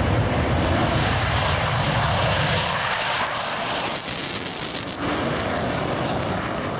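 Jet engine noise from a Panavia Tornado's twin Turbo-Union RB199 turbofans as the jet passes low, a loud continuous rushing noise that shifts abruptly about four and five seconds in.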